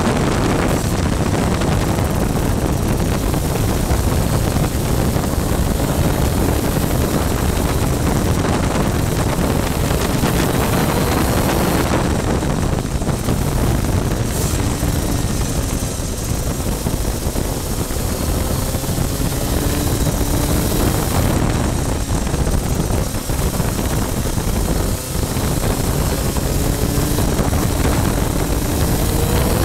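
Onboard sound of a superkart at racing speed on a wet track. Its engine runs at high revs that rise and fall with the gear changes, mostly buried under heavy wind buffeting on the microphone.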